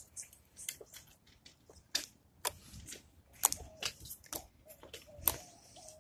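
Slime squeezed and poked between the fingers, giving irregular sharp clicks and pops.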